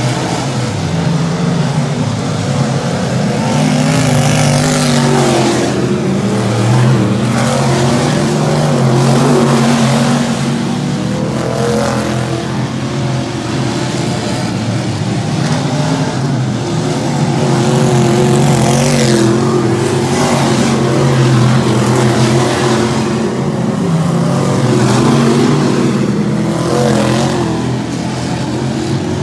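Dirt-track stock car engines running hard around the oval, the pitch rising and falling as the cars accelerate down the straights and back off into the turns, with several louder swells as cars pass close by.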